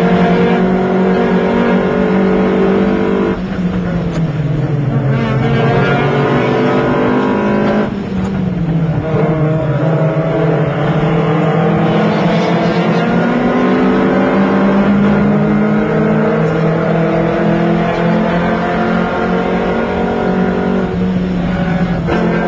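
Lotus Elise's four-cylinder engine under hard acceleration, heard on board while racing. Its pitch climbs steadily, then drops sharply at upshifts about three and eight seconds in and again near the end.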